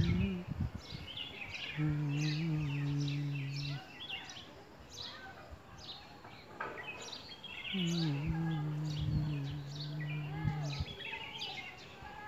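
Small birds chirping and twittering continuously, with two long, low, steady calls, one about two seconds long and a longer one about three seconds long starting near the middle.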